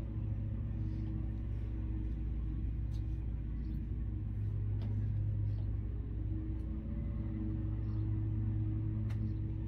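Steady low hum of room background noise, with a few faint ticks scattered through it.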